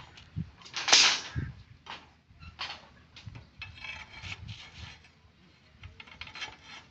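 Steel reinforcing bars knocking and scraping against each other as they are handled and levered for bending, with one loud metal scrape about a second in and lighter clinks and knocks after.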